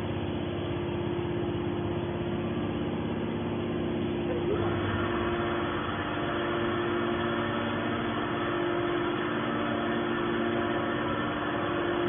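Hydraulic can baler's pump motor running with a steady hum; about four and a half seconds in its tone fills out with higher notes, as the machine takes on load.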